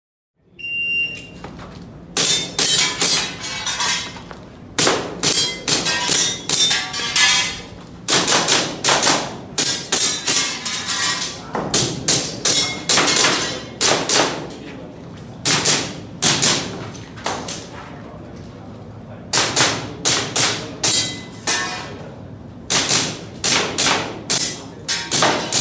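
A shot timer's start beep, then an airsoft pistol firing many rapid shots in quick strings of two to five with short breaks between them, as in a timed practical-shooting stage.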